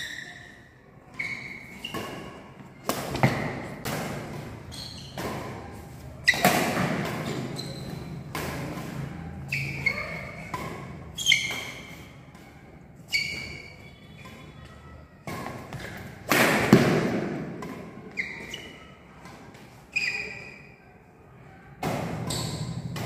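Badminton rackets hitting a shuttlecock back and forth in a fast doubles drill. Sharp, irregular hits come about every one to two seconds and echo in a large hall.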